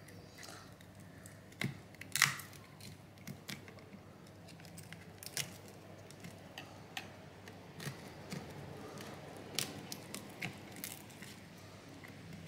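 Thin opening pick being worked around the glued edge of a cracked iPhone 14's screen, making scattered small clicks and scrapes; the sharpest click comes about two seconds in.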